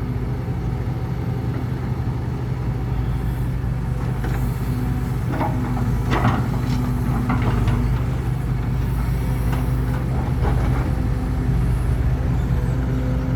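Heavy truck engine running steadily at a low, even pitch, with a few short sharp knocks or squeaks about four to seven seconds in and again near ten seconds.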